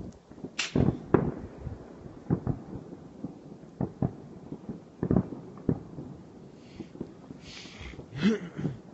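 Distant fireworks going off: an irregular string of sharp bangs, each trailing an echo, the loudest about half a second in.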